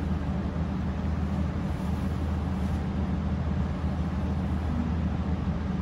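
Steady low hum with an even wash of background noise, unchanging throughout; no distinct event stands out.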